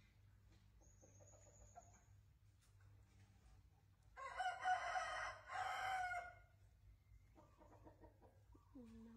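A rooster crowing once about four seconds in, a call of about two seconds with a short break in the middle; fainter calls follow near the end.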